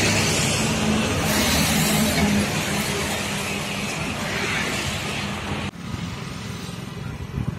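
A motor vehicle's engine running close by, loud and noisy with a steady low hum. It cuts off abruptly about six seconds in, leaving quieter roadside ambience.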